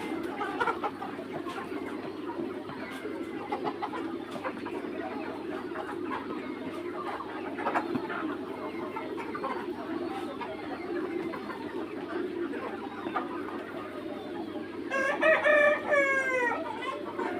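A flock of young Mía chickens clucking and calling steadily. About fifteen seconds in, a rooster gives one loud crow of nearly two seconds that falls in pitch at its end.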